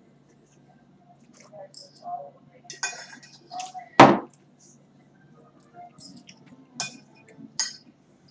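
Metal spoon clinking and scraping on a plate, with a few sharp clinks of tableware; the loudest comes about four seconds in.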